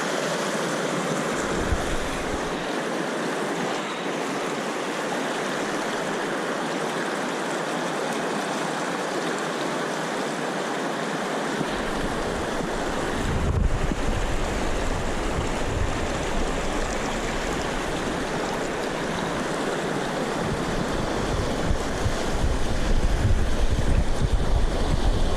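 Creek water rushing steadily over rocks. From about halfway, wind rumbles on the microphone, and there is a single brief knock a little later.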